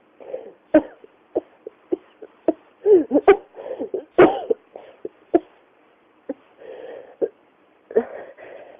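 A person in a coughing fit: a long run of short, sharp coughs, bunched tightly around the middle where the loudest ones come, with breathy gasps for air between coughs near the end.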